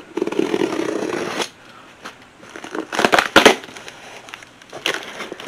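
Packaging being handled and crinkled as cookware is unpacked: a dense crackling rustle for about a second and a half, then a short cluster of sharp crackles about three seconds in.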